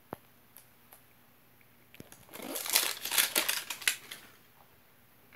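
Hands tearing open the plastic of an L.O.L. Surprise ball: a few light clicks, then about two seconds of crackling, crinkling plastic.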